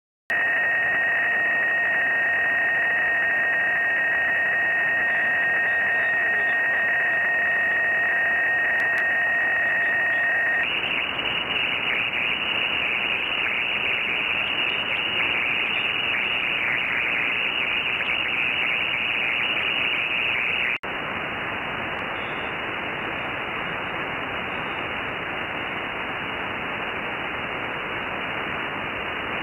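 Ham radio receiver audio full of interference noise: first a hiss with several steady whistling tones, then about ten seconds in a harsher crackling buzz with the receiver on 3.885 MHz in the 75-metre band, then about twenty seconds in a quieter, even hiss with the receiver on 21.33 MHz. The noise is local RFI, which the owner blames on consumer electronics.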